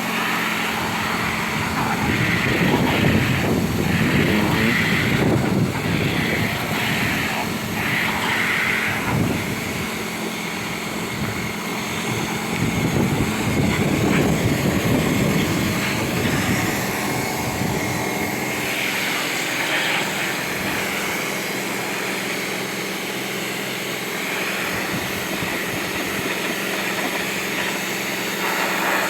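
Pressure washer running steadily, its high-pressure water spray hissing and swelling louder and softer several times as it is worked across the house siding.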